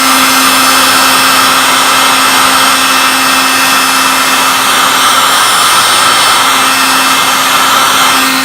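Electric heat gun running steadily: a loud, even rush of blown air with a steady hum underneath, heating a CPU stuck to its heatsink to free it.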